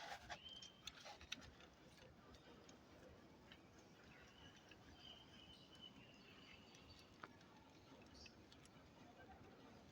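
Near silence: faint background hiss with a few light clicks in the first second or two and a faint high tone held for a couple of seconds midway.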